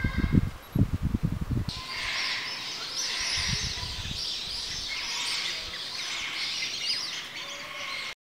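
A koala chewing eucalyptus leaves close up, a quick run of chews, until about two seconds in; then a dense chorus of birds chirping and chattering, which cuts off suddenly near the end.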